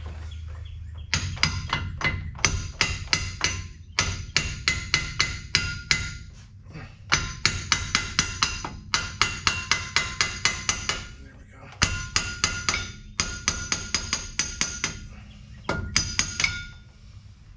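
Hammer blows on the steel U-joint and yoke of a truck driveshaft, done to work the U-joint loose for removal. The strikes are sharp and ringing, coming about three or four a second in runs of several, with short pauses between runs.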